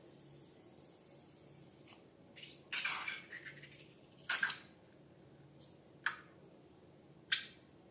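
Slime being handled, making a handful of short wet squishes and sticky clicks spaced a second or two apart, the longest one about three seconds in.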